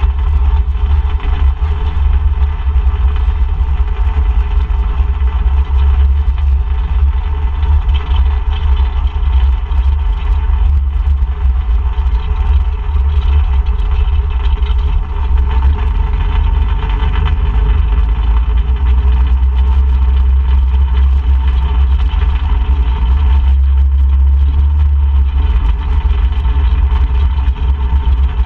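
ATV engine running steadily, with a heavy low rumble.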